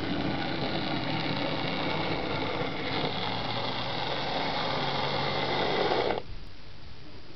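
A Lima 00 gauge Class 47 model diesel locomotive running on track: its electric motor whirring steadily, with the wheels rumbling on the rails as it approaches. About six seconds in, the sound drops away abruptly to a quieter hum.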